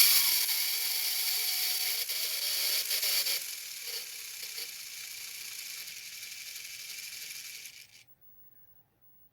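Small electric drive motors of an RC model submarine running with a high whine and hiss. The sound drops in level in steps and cuts off about eight seconds in.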